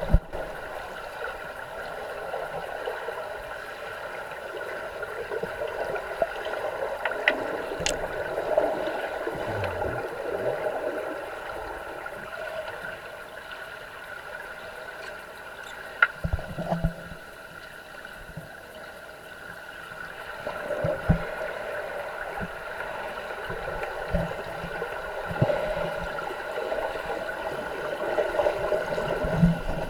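Swimming-pool water heard from a microphone underwater: a steady, muffled hiss and gurgle, with a few scattered sharp knocks and clicks.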